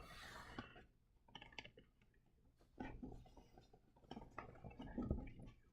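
Near silence with a few faint, brief rustles and clicks, typical of trading cards and pack wrappers being handled.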